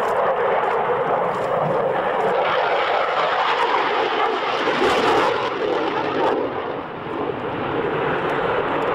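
Jet engine noise from a Saab JAS 39 Gripen's single Volvo RM12 turbofan as the fighter flies its display: a steady rushing roar. Its higher hiss falls away a little after six seconds in, and the level dips briefly near seven seconds.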